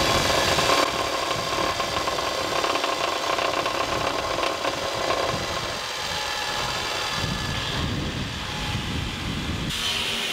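Bench grinder running, with a small piece of metal ground against the wheel for about the first second; after that the grinding stops and the wheel keeps spinning with a steady motor hum.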